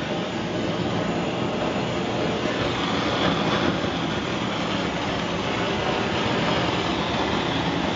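Sievert propane torch with a 2943 nozzle burning steadily at a low setting, an even rushing hiss, while it gently preheats a copper boiler. Crosswinds are disturbing the flame.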